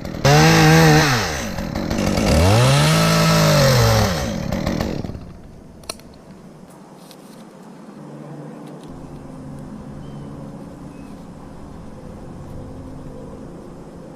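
Chainsaw engine revved up and back down twice in the first five seconds, then it drops away to a much quieter steady hum.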